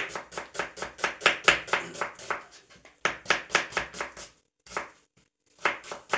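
Kitchen knife slicing an onion on a plastic cutting board: quick, sharp knocks of the blade against the board, about four or five a second. The cutting comes in runs, with a short pause about halfway and a longer one shortly before the end, when it picks up again.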